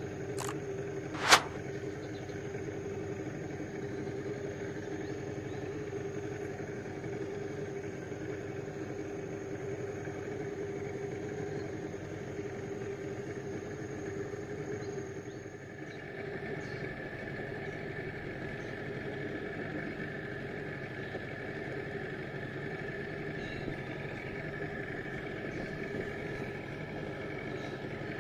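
Boat engine running steadily at trolling speed, its note shifting about halfway through. A single sharp metallic clang rings out about a second in.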